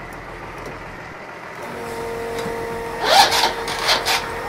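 A fuel tank's dispensing pump switching on about two seconds in and running with a steady hum, joined by several loud bursts of scraping and rattling as the fuel hose is handled.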